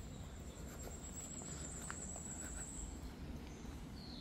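Footsteps on a dirt woodland path over a low rumble. A thin, high, steady note is held for about the first three seconds.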